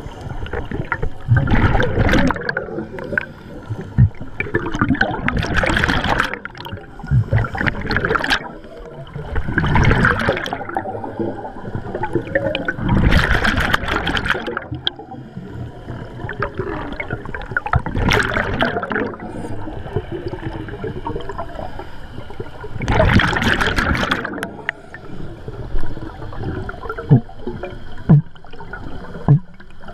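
Scuba divers' exhaled bubbles gurgling out of their regulators, heard underwater in surges every few seconds in step with breathing, with a few short sharp knocks near the end.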